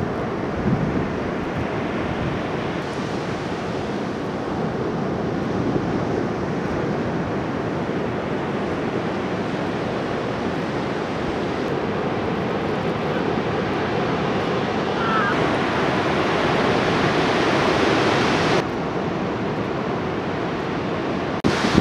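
Ocean surf: waves breaking and whitewater rushing, a continuous wash of noise that builds a little and then changes suddenly about eighteen and a half seconds in.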